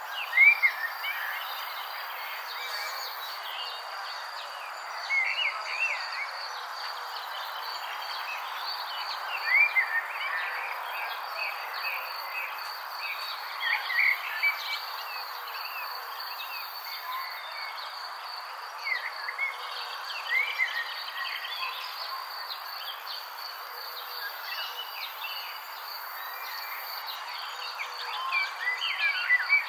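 Steady chorus of insects such as crickets, with short chirping calls in clusters every few seconds.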